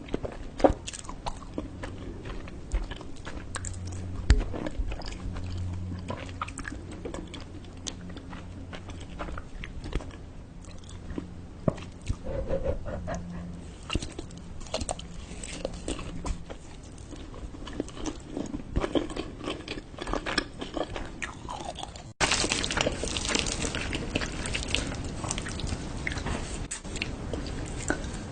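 Close-miked eating: biting and chewing with crisp, crunchy bites and many small irregular clicks. About 22 seconds in it cuts suddenly to louder chewing.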